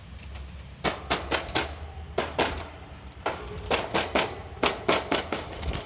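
Sharp taps and clicks on a hard surface, in quick runs of several taps with short pauses between.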